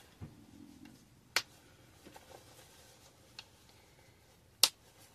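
Snaps on a cloth nappy shell's rise settings being pressed shut: two sharp clicks about three seconds apart, with a fainter click between them and soft handling of the fabric.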